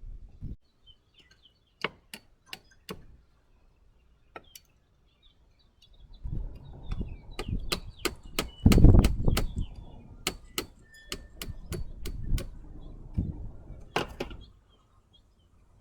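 Irregular sharp knocks and taps, scattered at first, then a quick run of them over a few seconds, with rumbling handling noise underneath. Birds chirp faintly.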